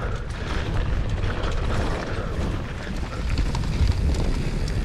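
Mountain bike rattling down a rough, rutted downhill trail: tyre rumble with a steady clatter of the bike's parts and wind buffeting the microphone.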